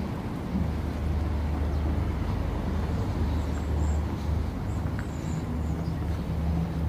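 Outdoor harbour ambience: a steady low rumble, with a few faint high chirps about halfway through.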